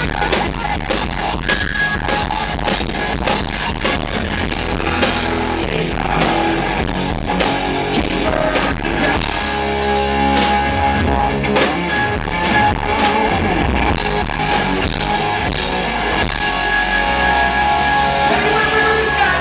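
Live rock band playing loud, with distorted electric guitars and a pounding drum kit. The recording is close to the stage, so the low end and the kick drums come through distorted.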